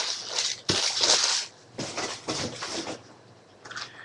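Rustling and crinkling of plastic wrapping as a sealed box of trading cards is picked up and handled, with a few light clicks. The rustling is densest in the first second and a half, then comes in short scattered bits.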